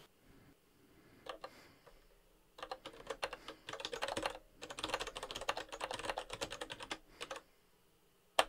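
Typing on a computer keyboard: a couple of single taps, then two long runs of quick keystrokes, and a few more taps near the end.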